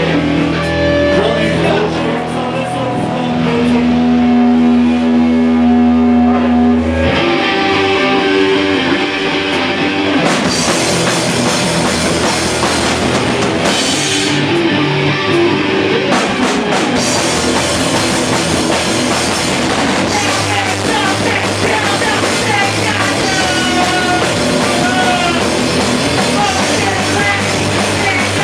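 Loud rock band playing: held electric guitar and bass chords at first, then drums and cymbals come in after about seven seconds and the full band drives on.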